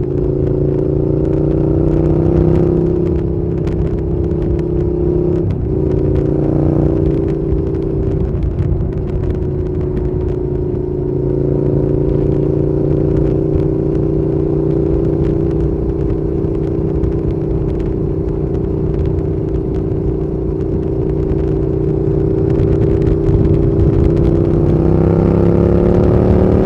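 Suzuki Gladius 650's 645 cc V-twin engine running, its engine speed mostly held steady. The pitch drops briefly about five seconds in, then climbs again near the end as the engine speeds up.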